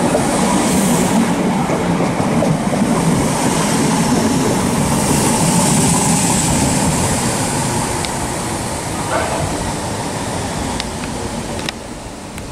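Southern class 313 electric multiple unit running past at close range into the platform, its wheels rumbling on the rails, with a high hiss about halfway through. The sound fades over the last few seconds as the train draws away down the platform.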